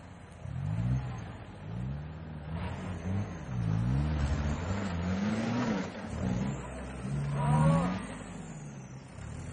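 Off-road 4x4 engines revving hard in repeated rises and falls as the trucks claw up a steep, rutted dirt climb under load. The loudest, highest rev comes about three-quarters of the way through, then the engines drop back.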